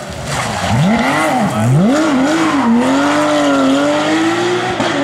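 Porsche 911 rally car's flat-six engine driven hard through a corner. The revs rise and fall sharply twice in the first two seconds, then climb steadily as it accelerates away, with a brief dip near the end.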